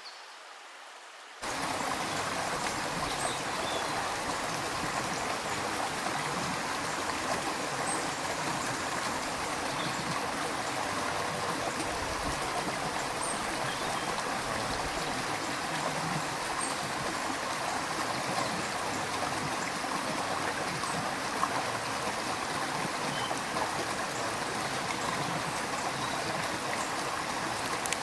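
Stream of running water, a steady, even rush that cuts in suddenly about a second and a half in.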